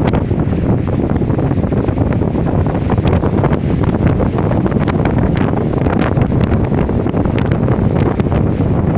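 Strong wind buffeting the microphone with a low, continuous rumble, over the wash of sea waves.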